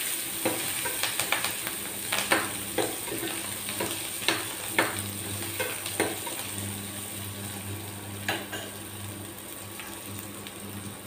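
Small onions sizzling in hot oil in a stainless steel pot while a spatula stirs them, clicking and scraping against the metal. The stirring stops about eight seconds in and the sizzling goes on. A low steady hum joins partway through.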